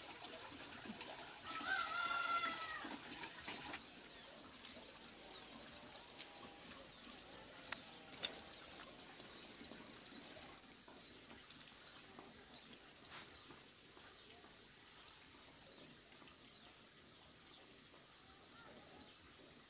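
A rooster crows once, an arching call about two seconds in, over quiet rural ambience with a faint steady high-pitched hum. A single sharp tick sounds about eight seconds in.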